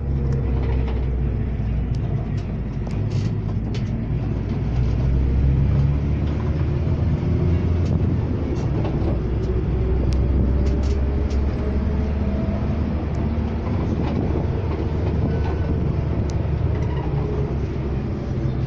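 Iveco Stratos L 27 minibus heard from inside the passenger cabin while under way: a steady low engine and road drone whose pitch drifts slowly up and down, with scattered light clicks.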